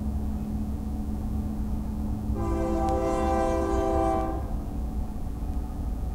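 BNSF freight diesel locomotive's air horn sounding one steady chord of several notes for about two seconds, over the low rumble of the passing train, heard from inside a car.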